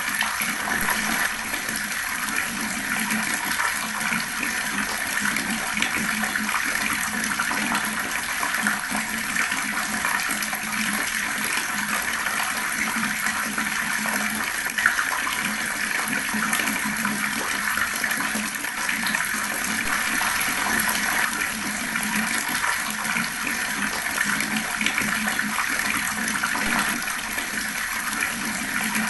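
Water running fast in a steady, unbroken stream, with one brief tick about halfway through.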